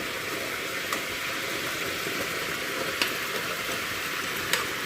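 Sliced pork belly sizzling steadily as it is stir-fried in a pan with chili flakes, with a few light clicks scattered through it.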